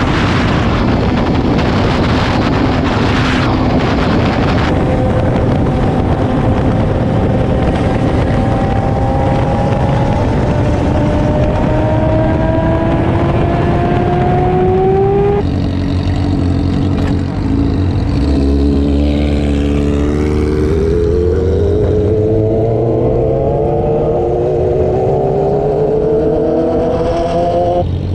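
600 cc sport bike's engine pulling up through the revs in gear, with the pitch climbing steadily. It shifts up about halfway through, then climbs again and shifts once more near the end. Heavy wind noise on the microphone covers the start.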